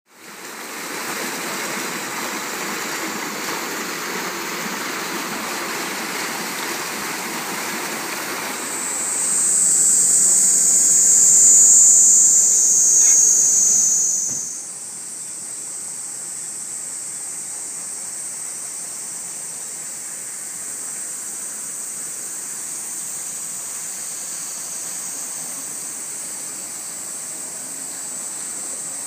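Muddy floodwater rushing after record heavy rain, with a steady high insect buzz over it. The buzz is loudest for a few seconds in the middle, and everything is quieter in the second half.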